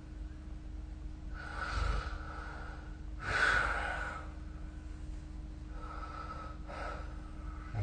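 A sleeping person snoring, with loud rasping breaths about every two seconds. The loudest comes a little after three seconds in, and a weaker double breath follows near the end.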